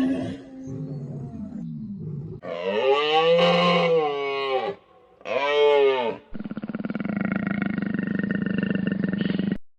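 Animal calls: two drawn-out calls that rise and then fall in pitch, the second shorter, followed by a long rasping growl that stops abruptly just before the end.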